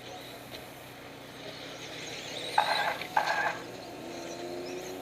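Radio-controlled stadium trucks racing on a dirt track, with two short, loud, noisy bursts a little past halfway as the trucks go by close.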